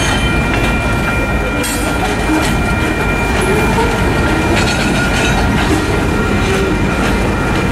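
Freight cars rolling steadily through a road crossing, wheels clattering over the rail joints, with the crossing signal bells ringing faintly behind.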